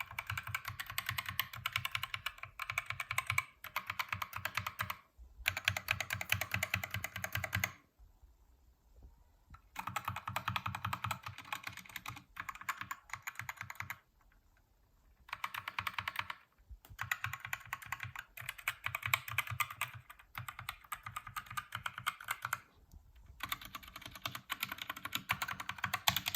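Fast typing on a Mizar MZ60 Luna 60% mechanical keyboard as a sound test: dense runs of key clicks, with two short pauses partway through.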